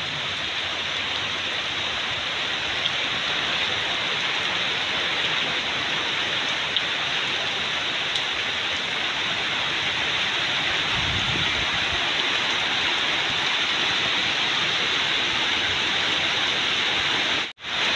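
Steady rain falling on garden foliage and a puddled dirt path, a constant even hiss. The sound cuts out for an instant near the end.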